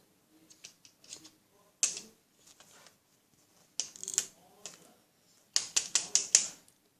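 Plastic Lego pieces of a puzzle box clicking and knocking as the box is handled and its key is worked into a hole: scattered sharp clicks, with a quick run of clicks near the end.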